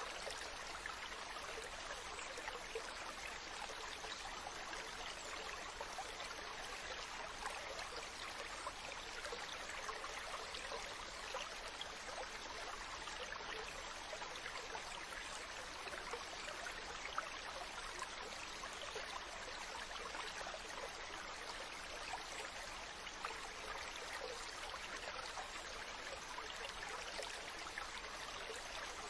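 Ocean water washing steadily, an even hiss with small crackles and no rise and fall of breaking waves.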